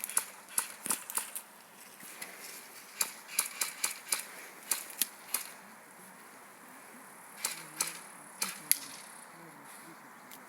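Airsoft guns firing: sharp pops coming in quick clusters of several shots. The shooting is thick at first, comes again a few seconds in, then thins to a few scattered shots.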